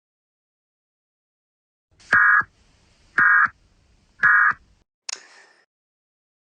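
Three short, identical bursts of Emergency Alert System digital data tones, about a second apart, marking the end of the alert message (the end-of-message signal). A brief burst of noise follows.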